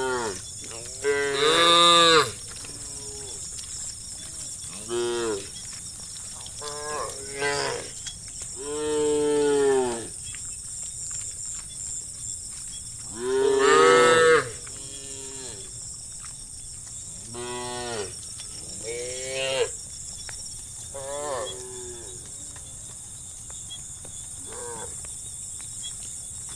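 Cattle mooing over and over, about a dozen separate calls of varying pitch and length, some long and drawn out, the loudest near the start and around the middle. A steady high hiss runs underneath.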